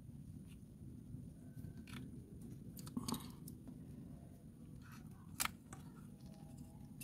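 Quiet handling sounds of a tube of silicone sealant being squeezed and worked around a spark plug tube opening on the engine's valve cover: a few soft crinkles and clicks, the sharpest about three and five and a half seconds in, over a low steady hum.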